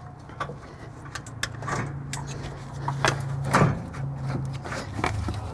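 Gloved hands working a rubber intake boot loose from a motorhome's metal air filter housing: scattered clicks, knocks and rubbing, over a steady low hum.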